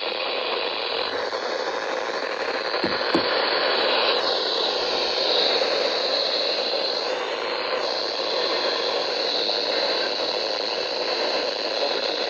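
Steady hiss of radio static from a weather radio receiver, with no voice coming through.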